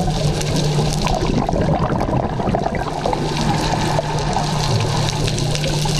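Underwater bubbling and gurgling from a scuba diver's exhaled air, with a steady low hum underneath.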